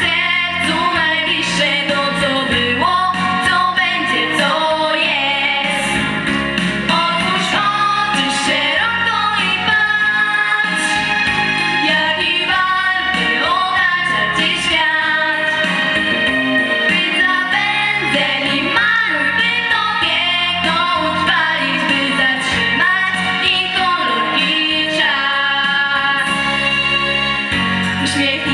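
Two girls singing a duet into handheld microphones over a backing track with a steady beat.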